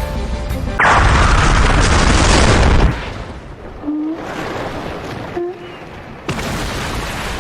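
Explosion sound effect: a sudden loud blast about a second in, with a deep rumble that lasts about two seconds and then fades. Another burst of blast noise starts near the end and cuts off abruptly.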